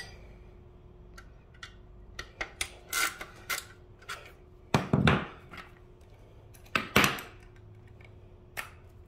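Small clicks and scrapes of a hand screwdriver backing out a little screw from a plastic motorcycle belly pan, then a few louder knocks about five and seven seconds in as the screw comes free, one of them the screw dropping onto the wooden floor.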